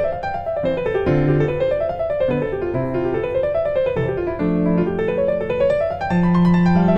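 Gentle piano music: flowing arpeggios that climb and fall again, about once a second and a half, over lower sustained bass notes.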